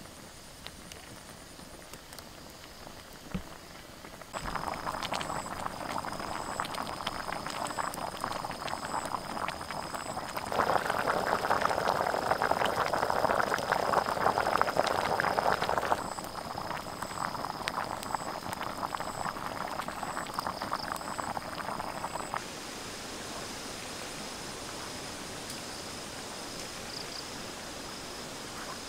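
Thick chicken curry bubbling at a rolling boil in a pan over a wood fire: a dense crackling, bubbling hiss that starts about four seconds in, grows loudest midway and drops back to a softer bubbling near the end.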